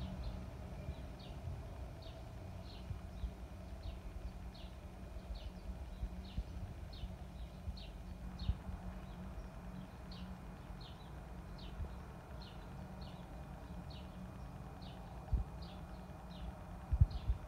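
A small animal outdoors chirping steadily: short, high chirps about two a second, over a low rumbling noise, with a couple of soft thumps near the end.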